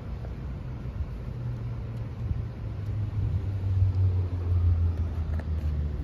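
A steady low rumble that grows louder in the middle, like a vehicle passing on the road or wind on the microphone.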